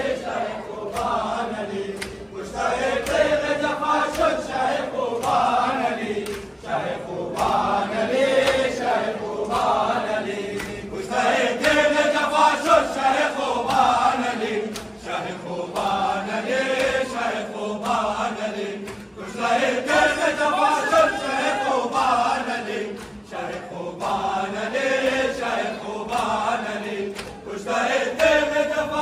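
Group of men chanting a noha, a Shia mourning lament, together in repeated phrases of about two seconds each.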